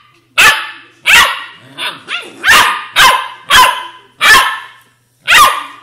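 Australian shepherd puppies barking: a string of about eight sharp, high-pitched barks, roughly one every half second to second, with a couple of softer yips near the middle.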